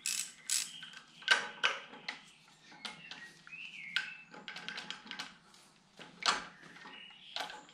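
Irregular sharp metal clicks and knocks as a camshaft alignment tool is worked down onto the camshafts of a BMW N52 engine to seat it at top dead center, with a few louder knocks among them.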